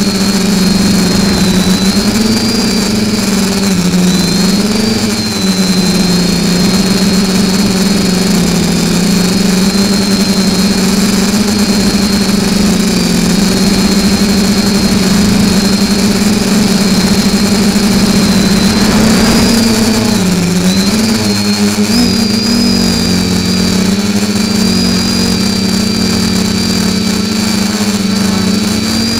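FPV quadcopter's electric motors and propellers buzzing steadily in flight, picked up by its onboard camera. The pitch dips briefly twice, about four seconds in and again about twenty seconds in.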